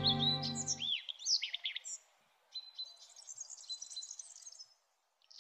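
A sustained music chord cuts off about a second in, leaving small birds chirping in quick, high twittering phrases with short gaps between them.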